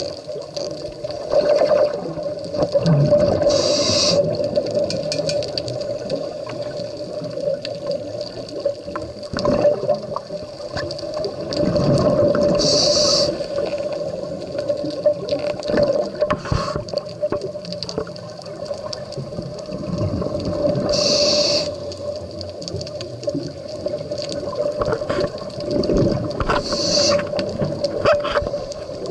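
Scuba diver breathing through a regulator underwater: a short hiss on each inhale and a burst of bubbling on each exhale, repeating every seven or eight seconds over a steady hum.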